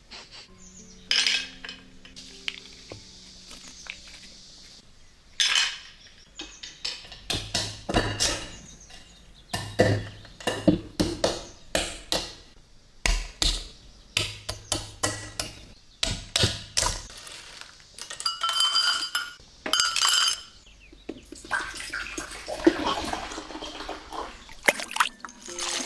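Repeated clinks and knocks of hard tools against glass or ceramic vessels, with liquid being poured, from hand-mixing pigment, over soft background music.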